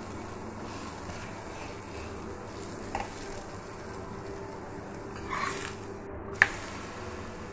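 Chapati frying in ghee on an iron tawa, giving a faint steady sizzle. Just past six seconds comes a brief rustle and a sharp tap as it is turned over by hand.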